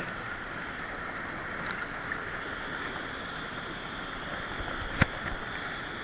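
Waterfall pouring into a plunge pool: a steady rush of water, with one sharp tap about five seconds in.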